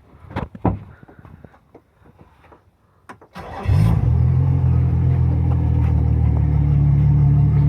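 Yamaha 200 four-stroke outboard motor cranking and catching about three and a half seconds in, then running at a steady idle. Before it starts, a few scattered clicks and knocks.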